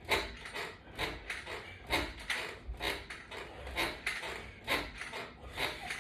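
Flat resistance band and its latch bar attachment creaking and rubbing in quick, uneven strokes, about two a second, as the band is pulled through repeated crunches.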